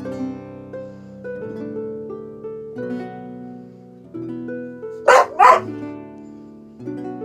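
A boxer dog barks twice in quick succession, about five seconds in, over light plucked-string background music.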